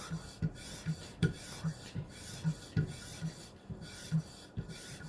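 Maxamet steel knife blade drawn in quick alternating strokes over a bare leather strop, a short rub about two to three times a second.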